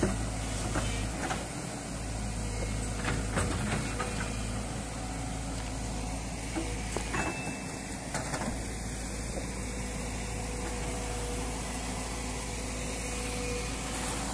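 Diesel engine of a JCB tracked excavator running steadily while the bucket digs in the riverbed, with a few short knocks, the loudest right at the start.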